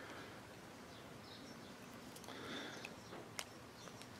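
Faint rural background ambience with a few faint bird chirps and one small sharp click about three and a half seconds in.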